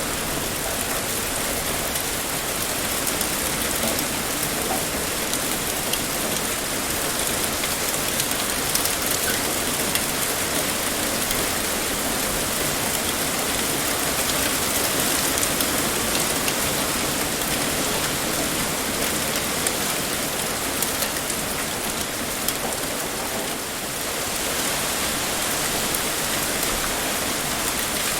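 Heavy rain pouring steadily, a dense even hiss of drops with fine pattering ticks on a surface.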